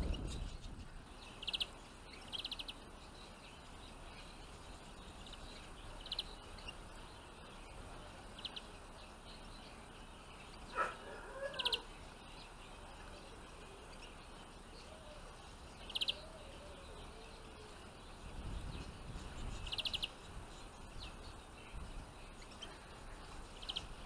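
Finches calling: short high chirps, scattered a few seconds apart, over a faint steady outdoor hiss, with a low rumble about three quarters of the way in.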